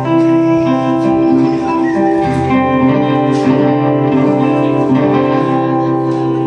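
Guitar played live without singing: chords ringing and held, with a few fresh plucked notes.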